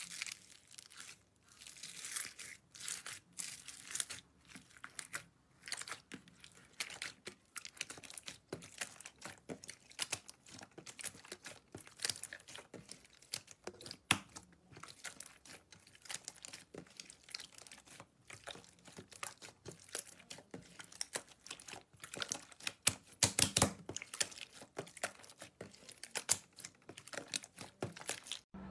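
Slime being squeezed and pressed by hand, giving a dense, irregular run of crackling and popping clicks, loudest near the end.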